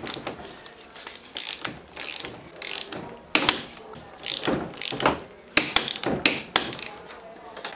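Socket ratchet wrench clicking in several short runs of back-and-forth strokes as fork and axle bolts are tightened.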